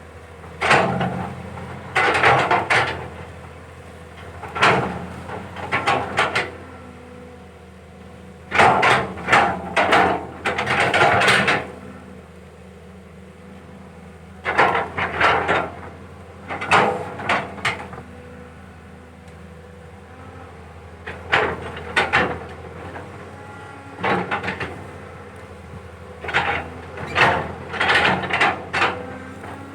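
Caterpillar 320 excavator's diesel engine running steadily under load, with loud bursts of clanking and scraping every few seconds as the bucket digs into the pond bottom.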